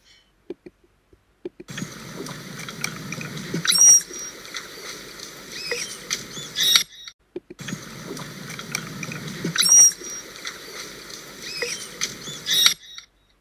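Manatee squeaks and chirps: short, high-pitched calls that bend up and down in pitch, over a low hiss. The same few-second recording starts about two seconds in and plays twice, with a brief silence between the two runs.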